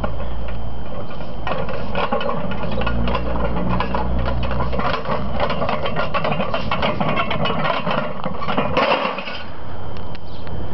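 A loaded strongman yoke's steel frame and iron plates rattling and clanking in a rapid, irregular clatter as it is carried, densest from about a second and a half to nine seconds in, over a low rumble.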